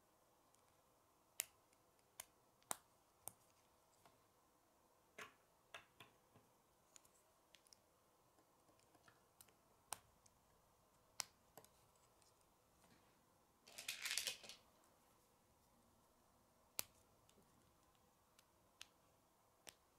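Plastic K'nex pieces snapping together: sharp, isolated clicks every second or few, with a short rattle of loose pieces a little past the middle.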